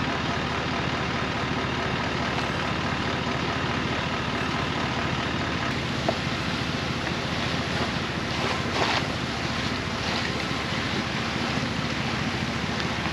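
Steady rush of wind on the microphone and tyre noise from a 4x4 driving a wet dirt road. A sharp click about six seconds in, and a few short, louder bursts about eight to ten seconds in.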